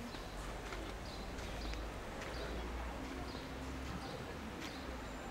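A small bird chirping in short calls about once a second, with scattered sharp clicks and a low rumble underneath.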